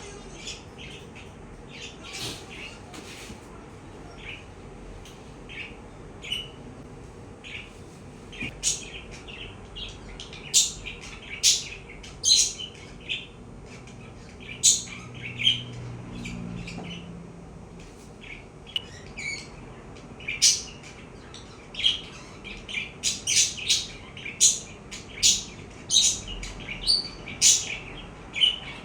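Budgerigar chirping in short, sharp calls, sparse at first and coming in quicker runs in the second half.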